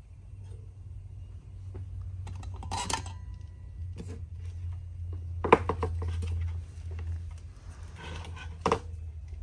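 Light metallic clicks and clinks of a soldering iron and battery wiring being handled on a workbench. They come in a few short clusters, the sharpest about five and a half seconds in, over a steady low hum.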